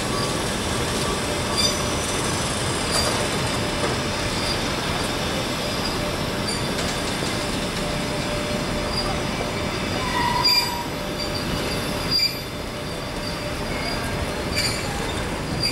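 Passenger coaches of an arriving train rolling slowly along the platform: a steady rumble of wheels on rail with repeated short high-pitched squeals. A louder squeal comes about ten seconds in.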